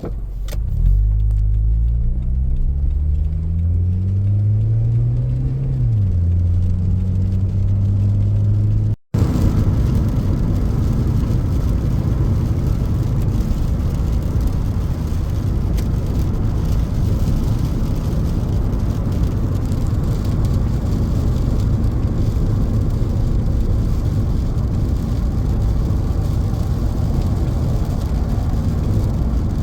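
A car pulling away: its engine note rises for about five seconds, then drops and holds steady. After a sudden cut about nine seconds in, steady engine and road rumble of the car driving.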